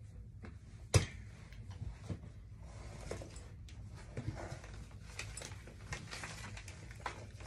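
A sharp knock about a second in, then scattered light taps and soft rustling: someone moving in behind a cardboard puppet theatre on a tabletop and handling the puppets.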